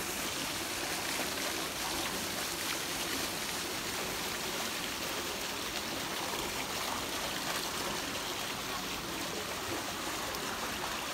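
Steady rushing hiss of swimming-pool water, moving and lapping without a break.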